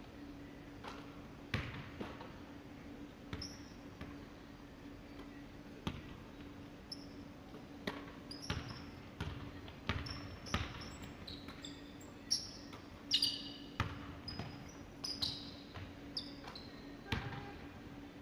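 A basketball bouncing irregularly on a hardwood gym floor, with sneakers squeaking in short high chirps as players cut and stop, busiest in the second half. A steady hum runs underneath.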